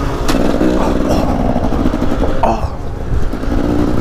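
KTM dirt bike engine running as it rides along a dirt track, its pitch rising and falling with the throttle. A sharp knock comes about a third of a second in.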